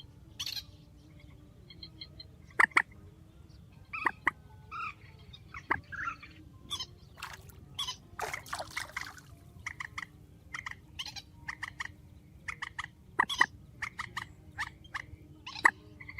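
Purple swamphen calls: quick series of short, sharp clucks and squawks, with a harsher, longer burst of squawking about eight seconds in, over a steady low hum in the recording.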